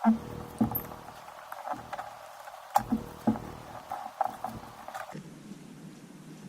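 Irregular small clicks and taps of broken glass being pried and chipped off an iPad mini's frame with a metal tool.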